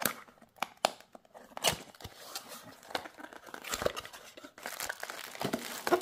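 Handling noise from a small cardboard box being opened and a plastic bag crinkling: irregular clicks, scrapes and rustles.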